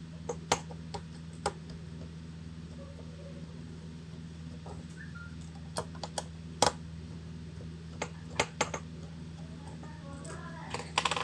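Scattered sharp clicks and taps of a small screwdriver on the metal and plastic of a laptop CPU fan assembly as it is unscrewed from its heat sink, with a quick cluster of clicks near the end as the parts are handled. A steady low hum runs underneath.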